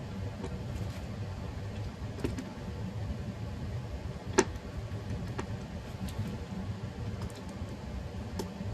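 Light clicks and knocks from flat-pack furniture parts being handled, with one sharp knock about four seconds in, over a steady low rumble.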